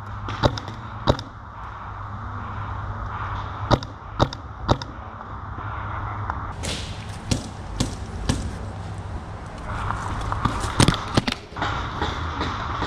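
Paintball markers firing: scattered sharp pops, some single and some in strings about half a second apart, with a quick cluster of shots near the end.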